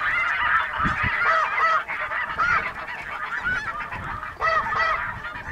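A flock of snow geese calling overhead: many high, overlapping barking honks. Wind thumps on the microphone about a second in.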